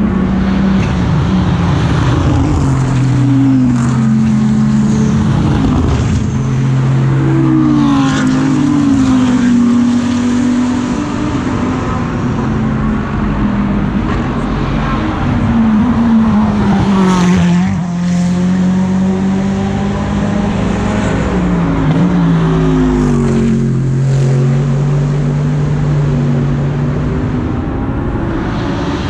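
GT3 race car engines running on the circuit, the note stepping down and back up again and again through gear changes as several cars go through in turn.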